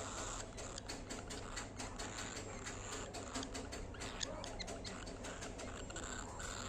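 Cockatiel pecking and nibbling at its egg food: a quick, irregular run of small beak clicks.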